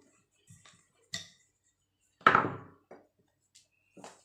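A handful of short knocks and thuds on a tabletop as puff-pastry dough is handled and folded and a rolling pin is put down, the loudest knock a little past halfway.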